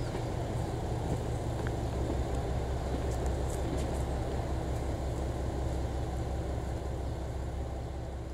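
JR Shikoku 2000-series diesel railcar idling at a standstill: a steady low engine hum.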